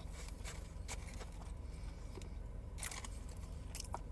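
A person chewing a mouthful of breaded chicken sandwich, with irregular small crunches and mouth clicks, a couple of sharper ones near the end. Under it runs a low steady hum.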